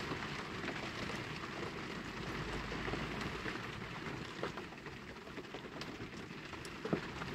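Heavy rain falling on a shed roof, heard indoors as a steady hiss, with a few faint ticks.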